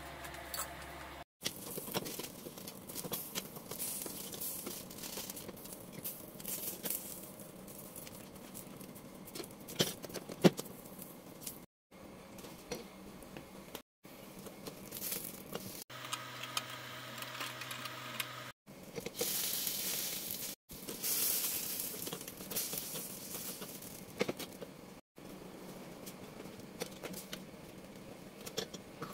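Eggplants charring directly over gas burner flames, their skins crackling and sizzling against a low flame hiss, with scattered sharp clicks of metal tongs on the stove grate. The sound is broken by several short, sudden silences.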